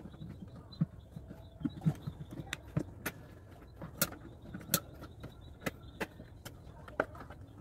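Irregular sharp clicks and light knocks from a car's plastic air filter housing and its cover clips being handled and pressed into place by hand, over a low steady hum.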